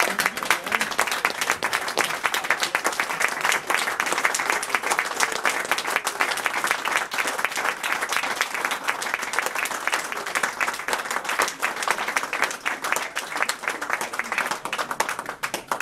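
A small crowd clapping steadily in sustained applause, a standing ovation for a speech of thanks; it stops abruptly near the end.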